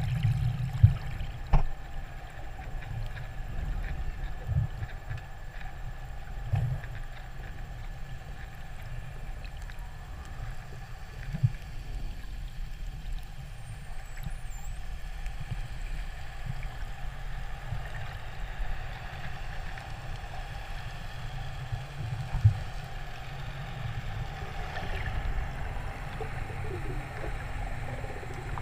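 Muffled underwater noise picked up by a camera in its housing: a steady low rumble with faint steady tones above it and a few dull knocks, the loudest about a second in and about 22 seconds in.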